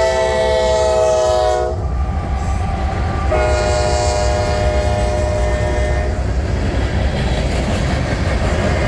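Norfolk Southern locomotive's air horn sounding one chord that cuts off about two seconds in, then a second long blast from about three seconds that fades out near six seconds, over the steady low rumble of the train rolling past.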